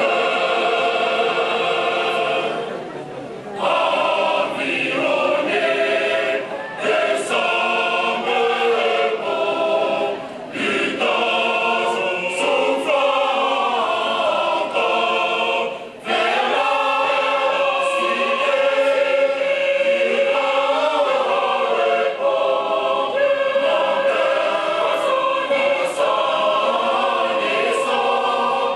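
Mixed choir of women's and men's voices singing a Protestant evangelical hymn in sustained, held phrases, with short breaks between phrases.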